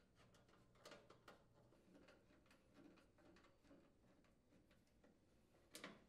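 Near silence with a few faint clicks from a Phillips screwdriver working the range's front bracket screws in the sheet-metal top: a couple about a second in and one more near the end.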